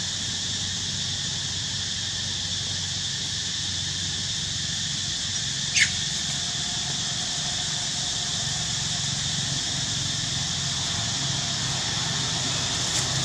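A long-tailed macaque gives one short, sharp squeal about six seconds in, falling in pitch, during a scuffle, with a fainter cry near the end. Under it runs a steady high-pitched background drone.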